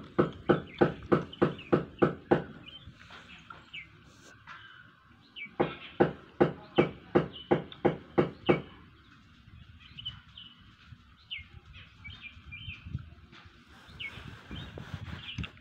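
Gray langur chewing bread close to the microphone: a steady run of wet chews, about three to four a second, that stops, starts again a few seconds later and stops near the middle. Birds chirp in the background.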